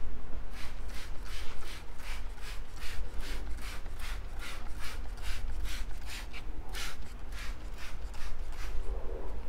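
Trigger spray bottle spritzing, many quick sharp hisses in a row at about three a second.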